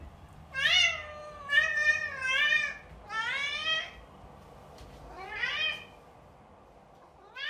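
A domestic cat meowing repeatedly: a series of drawn-out meows that rise and fall in pitch, with short pauses between them.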